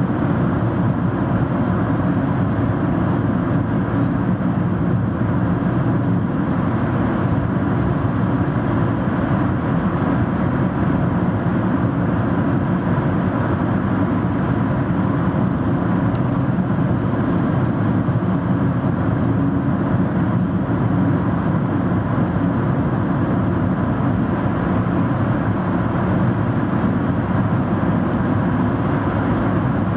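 Steady road and engine noise of a car cruising through a long highway tunnel, heard from inside the cabin: an even rumble with a faint steady tone.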